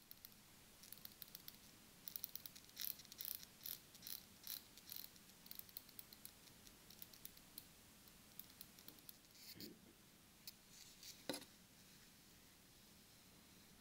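Rotating bezel of a Seiko 5 Sports watch ratcheting as it is turned by hand: a run of faint, uneven clicks over the first few seconds, then a few scattered clicks and one sharper knock near the end.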